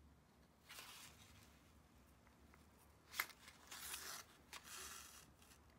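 Faint rustling and scraping of hand embroidery: yarn drawn through a knitted swatch and fingers handling a cardboard template, with one sharp tick about three seconds in.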